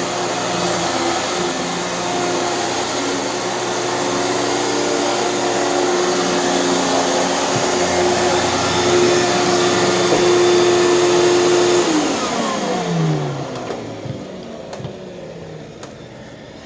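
Hoover canister vacuum cleaner running steadily, then switched off about twelve seconds in; its motor winds down with a falling growl over a couple of seconds and fades.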